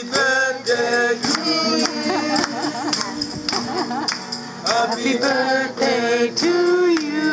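Live acoustic guitar and a man singing, with rhythmic hand clapping keeping the beat.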